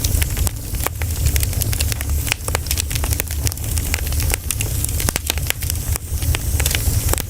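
Pine cones burning in a campfire, crackling with many irregular sharp pops over a steady low rumble.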